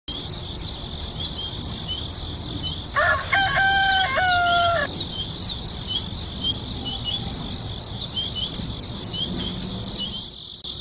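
Farmyard nature ambience: a steady run of short high chirps throughout, with a rooster crowing once in two parts about three seconds in.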